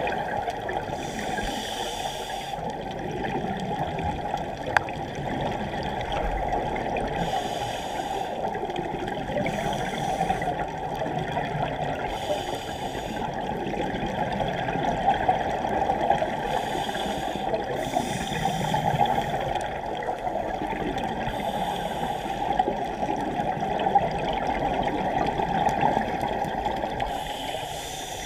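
Scuba regulator breathing heard underwater through a GoPro's sealed housing: bursts of hiss and bubbling about a second long, recurring every few seconds, over a steady muffled water rush.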